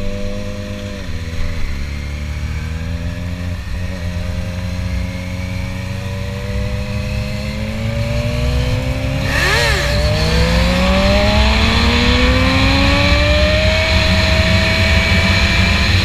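A vehicle engine running steadily, dipping in pitch about a second in, then climbing steadily in pitch from about eight seconds in as it accelerates hard, and holding high toward the end.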